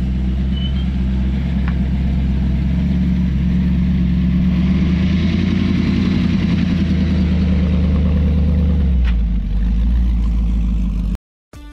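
Hot rod coupe's engine running with a steady deep rumble as the car rolls slowly past, a little louder in the middle, then cut off abruptly near the end.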